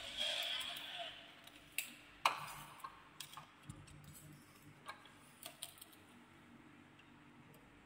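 Toy YG258-E dump truck handled and moved on a tabletop: a short scrape at the start, then scattered light plastic clicks and knocks, the loudest about two seconds in.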